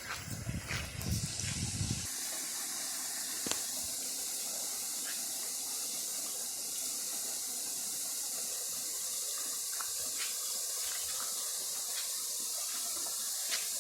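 Steady, even hiss of water, in a campus flooded by heavy rain. A low rumbling in the first two seconds cuts off sharply.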